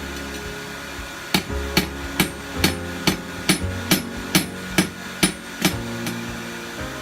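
Blacksmith's hand hammer striking hot steel on an anvil: about a dozen blows in an even rhythm of a little over two a second, starting about a second in and stopping near the end, each with a short ring from the anvil. A steady low hum runs underneath.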